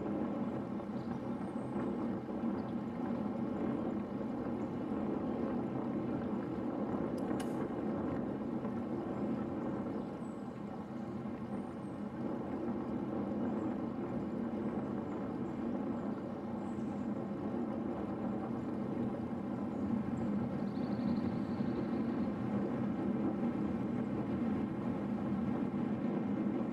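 Steady rush of wind over a bicycle-mounted camera's microphone, mixed with the road and tyre noise of a road bike riding at speed.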